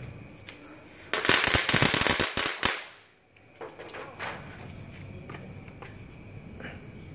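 A string of firecrackers going off: a loud, rapid crackling run of bangs for about a second and a half that stops suddenly, followed by a few single fainter pops.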